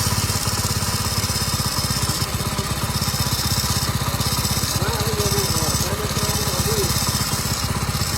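Motorcycle engine idling with a fast, even mechanical rattle. The mechanic traces the rattle to worn timing-chain roller rubbers and a slightly slack timing chain, not to a failed crank bearing.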